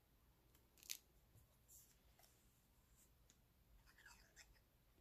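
Near silence with a few faint rustles and light taps of die-cut paper pieces being handled and pressed onto a card; the sharpest tap comes about a second in.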